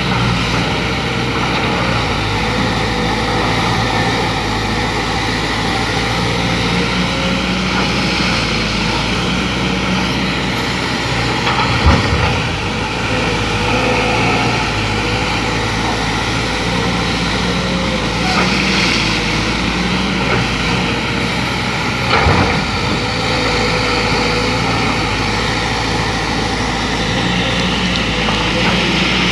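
Excavator's diesel engine running steadily under working load, with a faint wavering whine above it. Two short thumps, about twelve and twenty-two seconds in.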